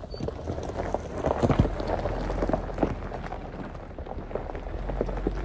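Jeep Wrangler Rubicon driving past on a gravel track: the engine's low running under the crunch of tyres over loose stones, with many small stone clicks and pops, loudest a little over a second in.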